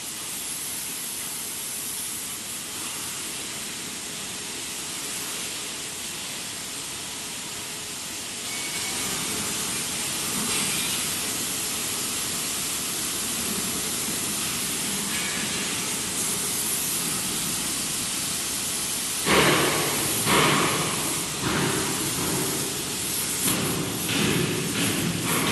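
Hand-held gas torch flame hissing steadily while heating a polyethylene patch to fuse it onto a steel mixer bar, getting louder about a third of the way in. Several sudden louder bursts of noise come in the last few seconds.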